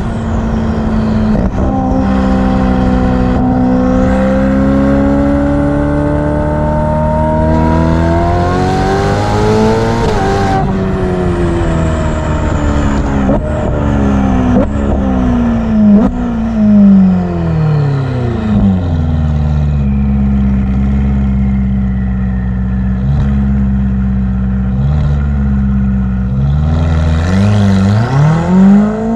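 Ferrari F8's twin-turbo V8 revving: its exhaust note climbs steadily for about ten seconds, then falls away in steps, with high whistles gliding down as the revs drop. The engine holds a steady lower note before it rises again near the end.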